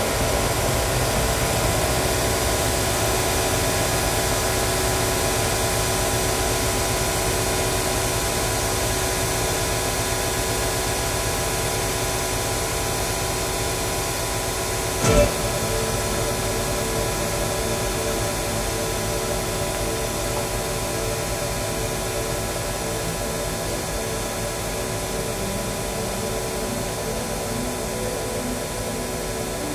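A steady, dense drone made of many held tones over a noisy hiss, with one sharp click about halfway through and pulsing notes coming in near the end.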